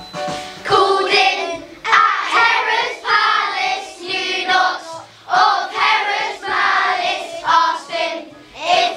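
A children's choir singing together in phrases about a second long, with short breaks between them. A few steady accompaniment notes sound just before the voices come in.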